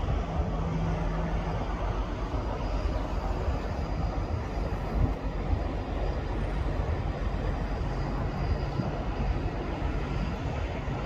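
Steady low engine rumble, with a faint hum that comes and goes, under a constant wash of wind and water noise.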